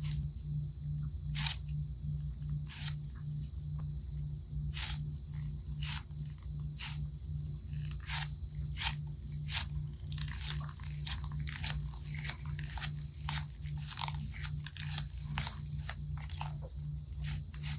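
Crunchy slime being squeezed and pressed, giving irregular sharp crackles and pops that come thicker in the second half. A low hum pulsing about two and a half times a second runs underneath.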